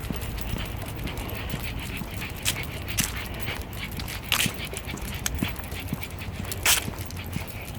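Shih Tzu moving through dry fallen leaves: scattered crisp crunches and rustles, with sharper crunches about halfway through and near the end.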